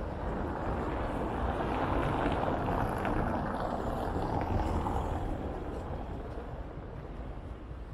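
A vehicle passing by: a noisy rush that builds over the first couple of seconds, is loudest in the middle, and fades away after about five seconds.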